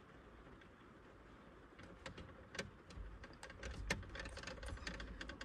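Faint handling noise as a phone is moved: scattered light clicks and knocks over a low rumble, starting about two seconds in.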